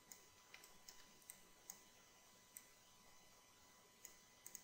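Faint computer mouse clicks, about nine at irregular intervals, against near silence.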